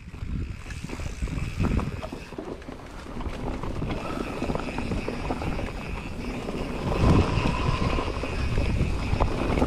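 Mountain bike rolling fast down a dirt trail covered in dry leaves: tyre noise over leaves and dirt, with the bike rattling over bumps and wind rumbling on the microphone. It gets louder from about seven seconds in as the speed picks up.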